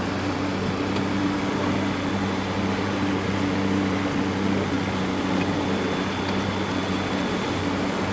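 Procraft bass boat's motor running steadily at low speed, an even, unchanging hum.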